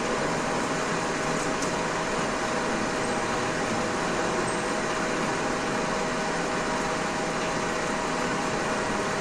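Metal lathe running steadily while turning a cylindrical surface: an even machine noise with a steady hum tone.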